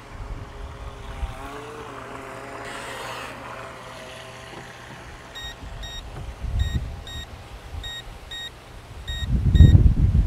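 Skytech H101 RC boat's electric motor whining faintly in the distance. From about halfway, repeated short high-pitched beeps come in pairs: the low-battery warning that the boat's battery is running down. A low wind rumble on the microphone rises near the end.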